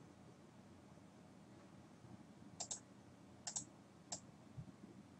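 Near silence with a few faint clicks from a computer user's desk: two quick double clicks about halfway through, then a single click.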